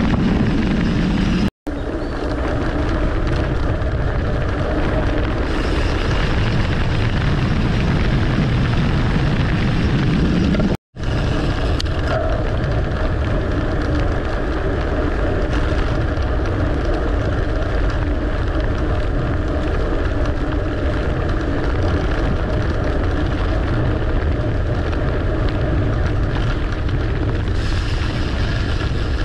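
Wind rushing over the microphone of a camera on a moving mountain bike, mixed with tyre noise on a concrete and dirt forest road. The sound cuts out completely twice, briefly, near two seconds in and about eleven seconds in.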